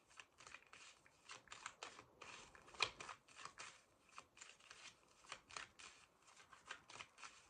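Deck of tarot cards being shuffled by hand: faint, irregular soft flicks and snaps of cards, with one sharper snap about three seconds in.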